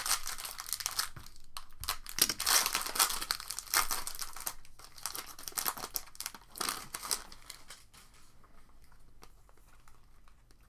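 Trading card pack wrappers being torn open and crinkled by hand, a dense crackling rustle that is loudest over the first half and thins to scattered faint handling clicks near the end.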